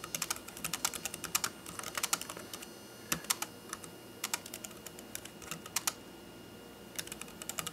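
Computer keyboard being typed on: irregular runs of key clicks with short pauses between words, and a longer pause about six seconds in.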